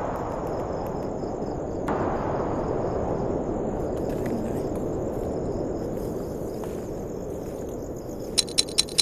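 Night insects trilling steadily and high over a loud, even rushing noise. Near the end, a rapid regular chirping sets in, about two to three sharp chirps a second.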